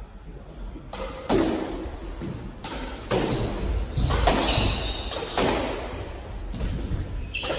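A squash ball being struck by racquets and hitting the court walls during a doubles rally: a quick run of sharp hits, about one a second or faster, ringing in the enclosed court. Short high squeaks of court shoes on the hardwood floor come between the hits.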